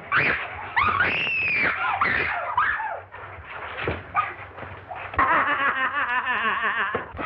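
Women shrieking and screaming as they fight, with high sliding cries in the first three seconds and a long, wavering shriek from about five seconds in.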